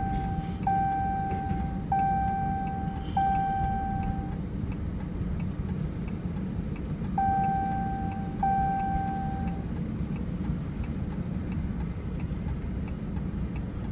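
A vehicle's seatbelt warning chime dinging: four evenly spaced single-tone dings about a second apart, a pause, then two more, over steady engine and road noise inside the cab. Faint regular ticking runs underneath.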